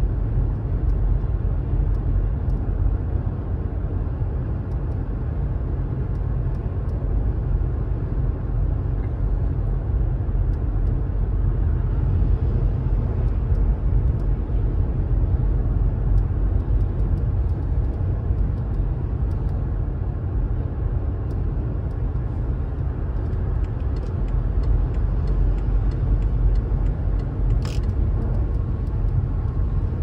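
BMW 760 being driven hard while warm, a test for its coughing fault: steady engine and road rumble with no clear change in pitch. A single sharp click comes near the end.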